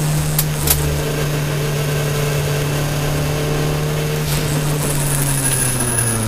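Toyota Celica All-Trac's turbocharged four-cylinder engine running at steady high revs, heard from inside the cabin with road noise, its pitch falling near the end as the revs drop. Two sharp clicks sound about half a second in.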